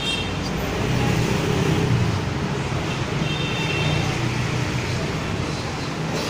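Steady street traffic of motorbikes and cars passing, a continuous engine hum and road noise, with a brief high-pitched tone about three seconds in.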